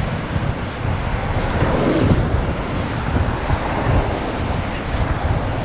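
Wind buffeting a GoPro Hero5's built-in microphone over steady outdoor traffic noise, with a louder swell about two seconds in.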